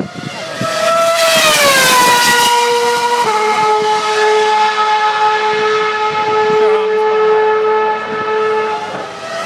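Formula One car engine running at high revs as the car passes: the note falls in pitch as it goes by, steps down once about three seconds in, then holds a steady high note until near the end, when another rising engine note comes in.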